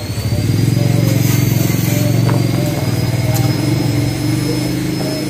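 An engine or motor running steadily, loud and low-pitched with a rapid, even pulse.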